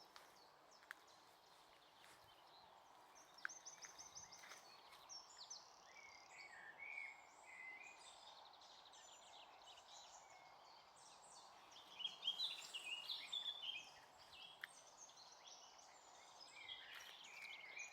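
Several songbirds singing at once in a mixed, overlapping chorus of chirps, quick high trills and warbles over a faint steady background hiss. The song grows louder and busier a little past halfway.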